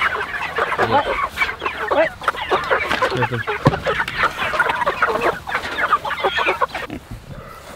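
A flock of meat chickens clucking densely all at once as they crowd around a feeder at feeding time, with a single sharp knock about three and a half seconds in. The clucking thins out near the end.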